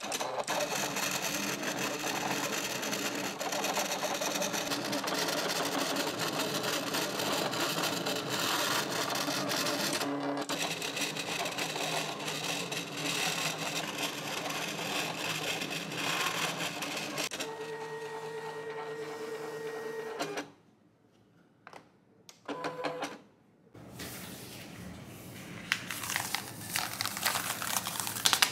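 Silhouette cutting machine running a cut on a sticker sheet: a loud, steady mechanical whir of the blade carriage and roller motors, with a short dip about ten seconds in, stopping about twenty seconds in. After a brief pause, a plastic cutting mat and sticker sheet are handled with rustling and crinkling near the end.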